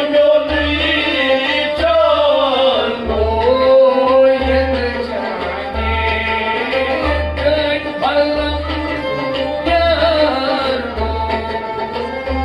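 A man singing a folk song to harmonium and bowed sarangi, over a steady low drum beat.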